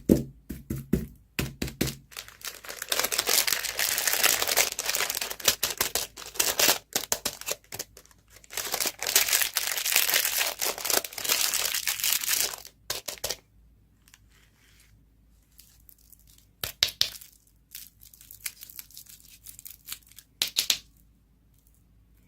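Candy packaging being torn open and crinkled. There are a few sharp clicks at first, then two long stretches of tearing and rustling, then short crinkles near the end.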